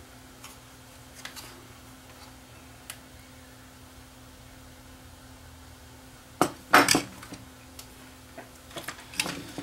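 Scattered clicks and knocks of small hard objects being handled on a workbench: multimeter test probes and the plastic flash housing picked up and set down. The loudest cluster comes about six and a half to seven seconds in, with a few more near the end, over a faint steady hum.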